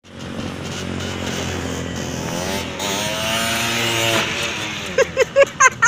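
Yamaha V80's small two-stroke single-cylinder engine running as the step-through rides past. Its pitch rises from about two and a half seconds in and drops away about a second and a half later. Near the end, a quick run of short, loud, pitched chirps cuts in.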